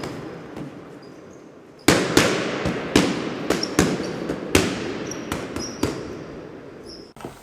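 Cardboard and plastic packaging crackling and snapping as a boxed Funko Pop figure is opened. A run of sharp cracks starts about two seconds in.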